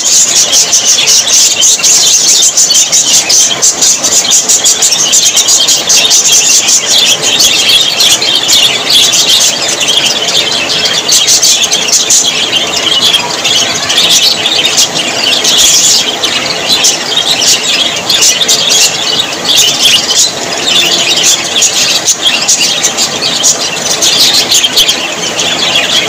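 A flock of budgerigars chattering without a break: a dense, overlapping mass of high chirps, warbles and squeaks from many birds at once.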